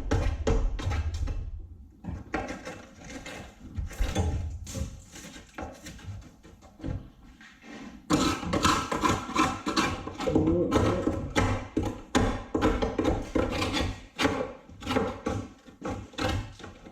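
Background music with a steady percussive beat, thinner for the first few seconds and fuller from about eight seconds in.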